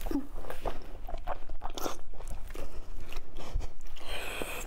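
A person biting into and chewing a large blood sausage close to a clip-on microphone: mouth sounds with many short clicks and smacks.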